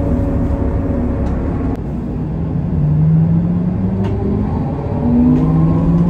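Low, steady vehicle rumble with a few held tones that step upward in pitch.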